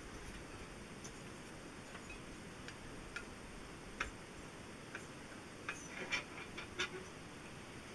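Faint, scattered light metallic clicks of feeler gauge blades and a steel straight edge being handled on top of an engine block while checking cylinder sleeve standout, with a quick cluster of clicks near the end.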